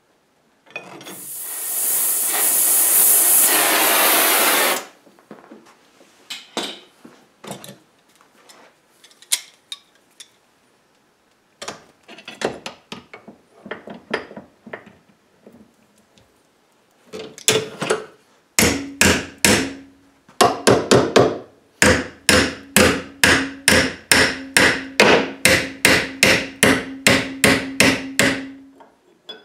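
Hammer striking a flat metal bar clamped in a bench vise, bending it: a long run of sharp blows, about two a second, each ringing briefly. Before the hammering come about four seconds of loud hissing noise and then scattered clicks and knocks of metal being handled.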